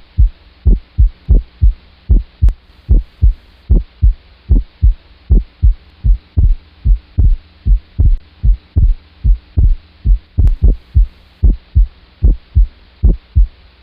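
Heart sounds heard through a stethoscope: a steady rhythm of paired lub-dub beats, a little faster than one pair a second, over a faint steady hum.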